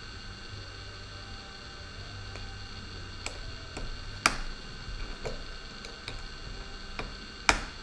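Small screwdriver and tiny screws clicking and tapping against a drone's plastic motor arm as the motor screws are taken out, over a steady electrical hum. There are a handful of sharp clicks from about three seconds in, the loudest about four seconds in and near the end.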